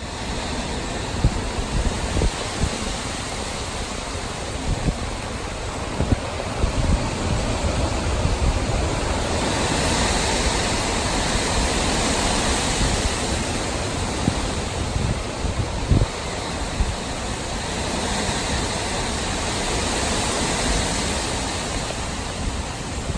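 Hurricane wind and rain: a steady rushing hiss that swells in gusts about ten seconds in and again near the end, with low rumbling and thumps of wind buffeting the microphone.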